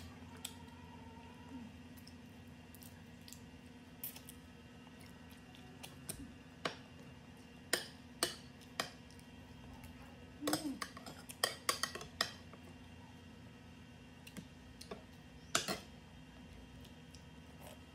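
Close-up eating sounds: scattered sharp clicks and taps from chewing and from a metal spoon against a ceramic plate, with a quick run of clicks a little past the middle. A steady low hum sits underneath.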